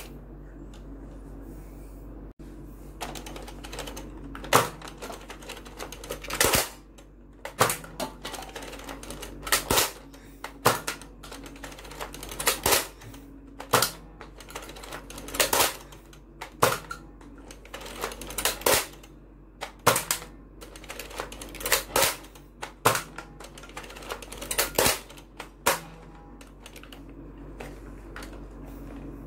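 Boomco Crank Force toy dart blaster being primed with its crank and fired over and over: a run of mechanical clicks with a sharp snap every second or two.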